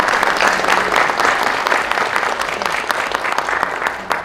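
Audience applauding: dense clapping from many hands, starting to thin out near the end.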